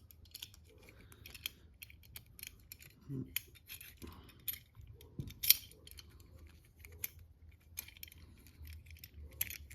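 Scattered small clicks and light metallic rattles as a car door handle and its gasket are handled and pressed together, with one sharper click about halfway through.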